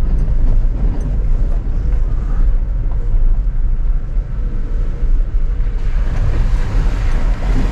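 Toyota Tacoma pickup driving slowly over a rough, wet dirt road, heard from inside the cab: a steady low engine and road rumble. About six seconds in, a hissing wash joins it as the tyres roll through mud and puddles.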